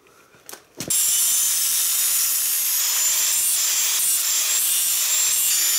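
Angle grinder starting up about a second in, then running steadily as its disc grinds the cut end of a motorcycle exhaust header pipe, a loud even hiss with a high whine. The grinder is evening out a rough cut in the pipe.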